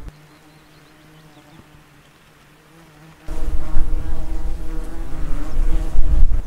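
Horseflies buzzing around the microphone, a steady pitched hum that wavers as they circle. About three seconds in the buzzing becomes much louder, over a low rumble.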